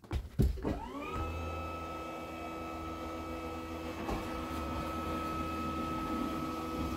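Hydraulic slide-out pump motor of a 2006 Montana fifth wheel starting after a couple of clicks, its whine rising in pitch over about a second and then running steadily with a low hum as it pulls the bedroom slide's hydraulic cylinder in.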